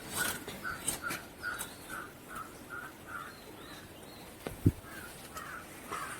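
A bird calling over and over in short, evenly spaced notes, about two and a half a second, with a few sharp clicks and one loud low thump about four and a half seconds in.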